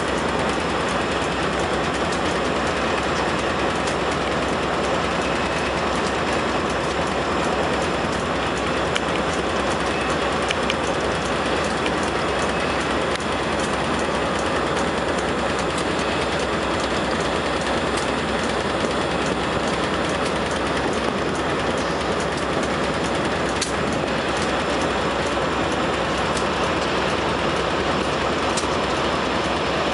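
Container freight train's wagons rolling past close by: a steady, loud rumble of steel wheels on the rails, with occasional sharp clicks and clacks.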